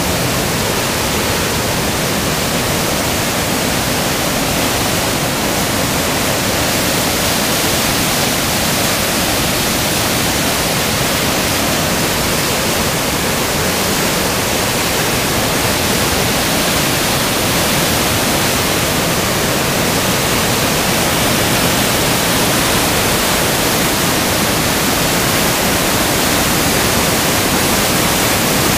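Flood-swollen river water pouring over a hydroelectric dam's spillway and crashing into the churning water below: a loud, steady rush of water.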